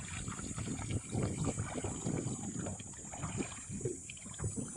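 Water splashing and lapping in small irregular splashes, with a steady high hiss behind.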